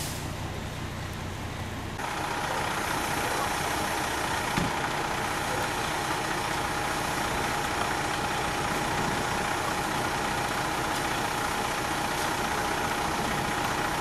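Fire engine idling: a steady engine rumble with a steady high whine running through it.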